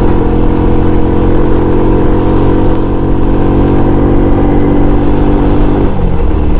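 SYM Bonus 110 underbone motorcycle's single-cylinder four-stroke engine running steadily under way, heard from the rider's seat. About six seconds in, its note drops suddenly to a lower pitch.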